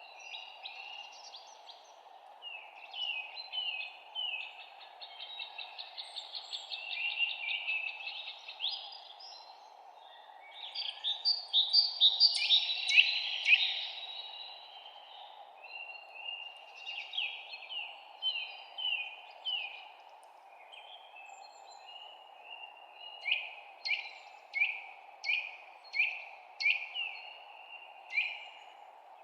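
Songbirds chirping and trilling, with a dense burst of loud notes about ten to fourteen seconds in and a run of six sharp, falling chirps near the end, over a steady low hiss.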